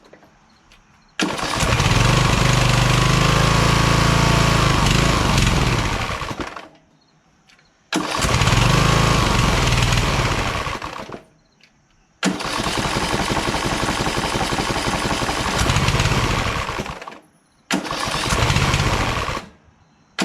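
Craftsman LT1000 lawn tractor's rebuilt Kohler Command engine running in four stretches of a few seconds each. Each starts abruptly and falls away to near silence, and the pitch rises and falls during the first, longest stretch. The owner takes the hood to be limiting how fast the engine can rev.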